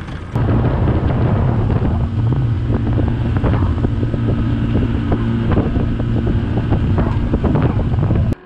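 Pull-started gasoline outboard motor running steadily under way, a low even drone, with wind buffeting the microphone. It cuts off suddenly near the end.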